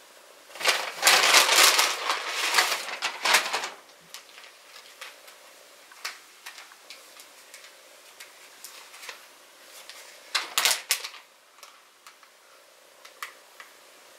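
Brown paper bag rustling loudly for about three seconds as an item is pulled out of it, then the crinkle and small clicks of a plastic zip-top bag being handled and pulled open, with a louder crinkle about ten seconds in.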